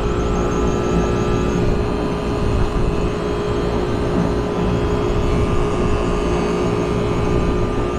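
Trane rooftop unit's compressor humming steadily, with a constant tone over a low rumble. It is running normally and drawing about 7.8 amps.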